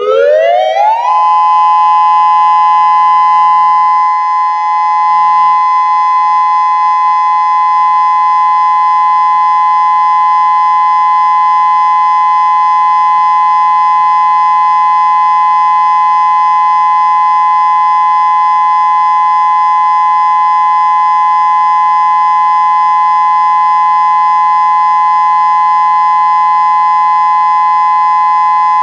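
Federal Signal Modulator 6024 electronic tornado siren sounding its steady alert tone during a test: the pitch glides up over about a second, then holds steady.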